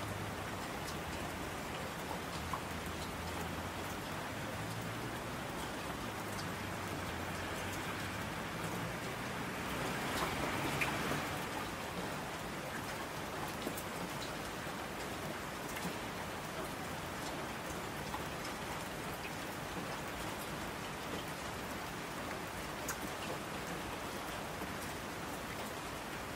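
Steady rain falling, with scattered individual drops pattering. It swells briefly louder about ten seconds in.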